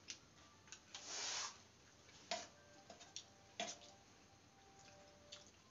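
A steel spoon tapping twice against a stainless-steel thali plate, each sharp clink ringing briefly. There is a short soft scraping hiss about a second in, among quiet eating noises.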